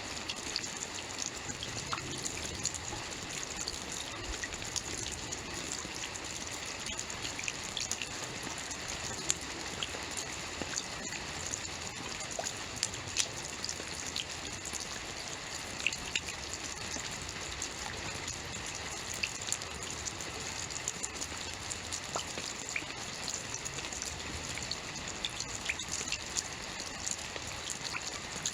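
Steady rainfall, with a continuous hiss and many scattered individual drops pattering on a surface.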